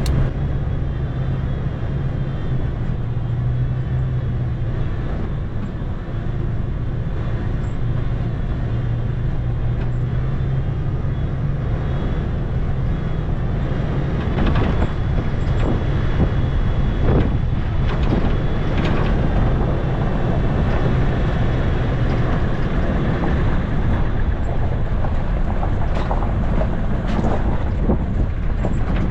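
Toyota FJ Cruiser's 4.0 L V6 running steadily at low speed while the truck drives a rough dirt trail, with tyre and suspension noise over hard-packed, frozen ground. Scattered knocks and rattles come about halfway through and again near the end.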